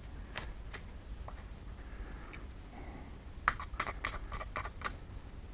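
Faint, scattered light ticks and scratches, then a quick run of pencil strokes scratching on masking tape stuck to a wooden door edge, starting about three and a half seconds in, as the outline for the latch is marked.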